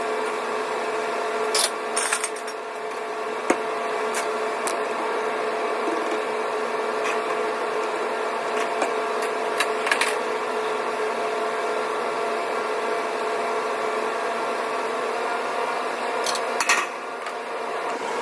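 Steady hum of a commercial kitchen extraction canopy fan, with a few scattered clinks and knocks of pans and utensils at the stove.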